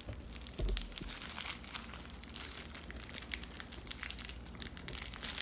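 Packaging crinkling and rustling in the hands as a taped parcel is cut open and unwrapped, with many small irregular crackles and a slightly louder bump about half a second in.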